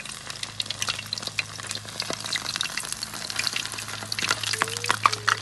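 Smelt coated in fish fry mix sizzling and crackling in hot oil in a frying pan, a dense irregular popping over a steady low hum.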